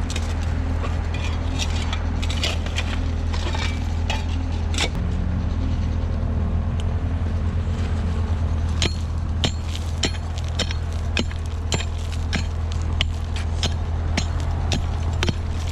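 A vehicle engine running steadily. In the second half, a run of sharp clicks comes about twice a second.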